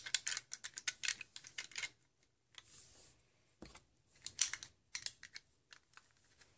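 Small plastic Lego pieces clicking and tapping together as a tiny brick puzzle box is reassembled by hand. Quick runs of light clicks, with a quieter gap about two seconds in.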